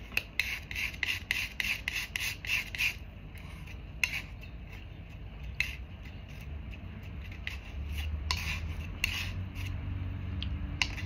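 Palette knife scraping and mixing oil paint on a palette. Quick strokes come about three a second for the first few seconds, then slower, scattered strokes.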